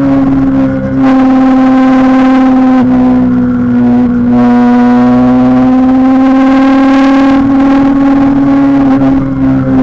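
Kawasaki Ninja 636's inline-four engine running at steady high revs under way, its pitch holding nearly constant with brief dips in the throttle a couple of times.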